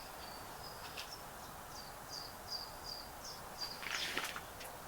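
A small bird calling outdoors: a run of short, high chirps, about three a second, over a steady background hiss, with a brief rustle near the end.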